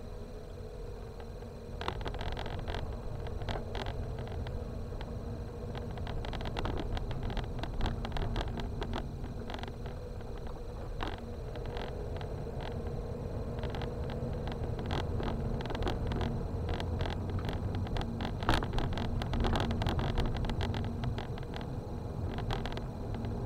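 Car driving over a rough, unpaved road surface, heard from inside the cabin: a steady low rumble of engine and tyres, with frequent small clicks and knocks from the broken surface. It gets louder about two seconds in.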